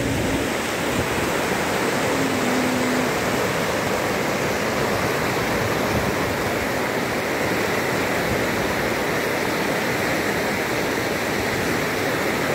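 Fast-flowing hill river rushing over boulders in white-water rapids: a steady, even rush of water.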